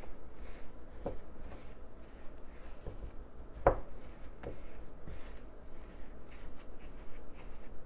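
Silicone spatula stirring and scraping a thick, dough-like bath truffle mixture in a ceramic bowl, in irregular strokes with a few knocks; the loudest knock comes about three and a half seconds in.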